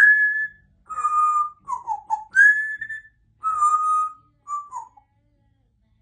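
Congo African grey parrot whistling a phrase of clear notes. Steady higher and lower notes alternate, with a few short notes sliding downward between them.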